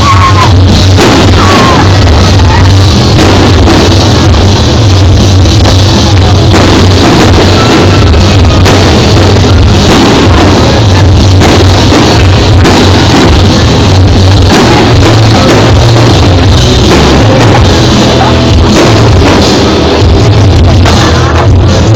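Very loud rock music with a heavy drum beat and guitar.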